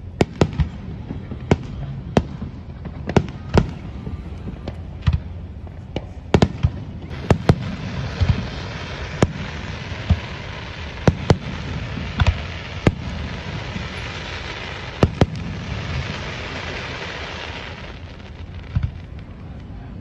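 Aerial firework shells bursting in quick succession, a sharp bang about every second. A steady hiss rises under the bangs a third of the way in and dies away near the end.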